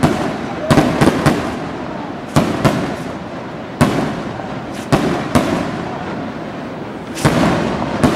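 Aerial firework rockets (cohetes) bursting: about ten sharp bangs at irregular intervals, each trailing off in an echo.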